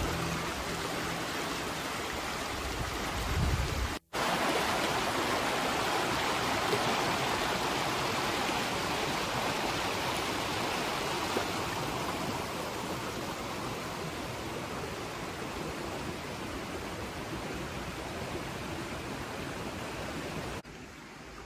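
Steady rushing water of a mountain stream. Piano music fades out in the first second, and the sound cuts out for a moment about four seconds in.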